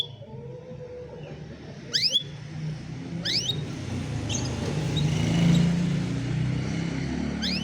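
A motor vehicle passing by: a low rumble that swells to its loudest about midway and then fades. Over it, a canary gives short, sharply rising chirps four times.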